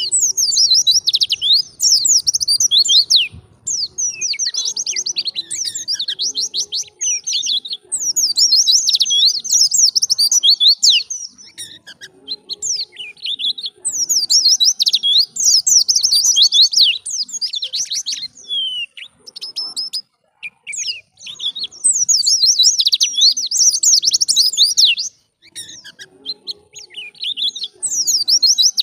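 White-eye (pleci) singing: fast, high twittering phrases of a few seconds each, broken by short pauses.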